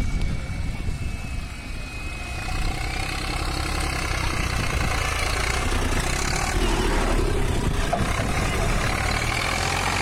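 Zetor tractor's diesel engine running as the tractor drives over a dirt obstacle course, growing louder as it comes near and passes close by from about six seconds in.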